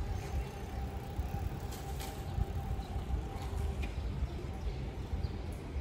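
Outdoor street ambience: a steady low rumble with a faint steady hum above it and a few light clicks.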